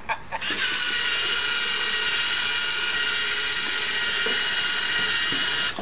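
LEGO EV3 robot's motors and plastic gear trains whining steadily as it drives, cutting off abruptly just before the end.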